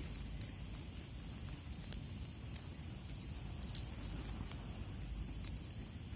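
Wood campfire crackling, with a few faint scattered pops, over a steady high chorus of insects.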